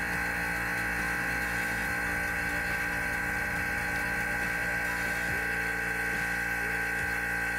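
Vacuum pump running steadily with an even high whine, drawing a vacuum chamber down from about half an atmosphere.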